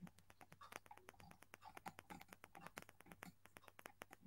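Faint, rapid clicking of a computer mouse's scroll wheel as a web page is scrolled down.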